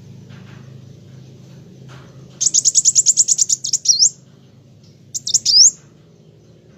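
Kolibri wulung sunbird singing: a rapid, high trill of about a dozen chirps, ending in a swooping note, starts a couple of seconds in, and a shorter phrase of swooping notes follows about five seconds in. A faint low hum sits underneath.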